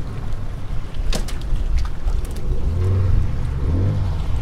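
Low, steady rumble of a fishing boat out on open water, with a sharp knock about a second in.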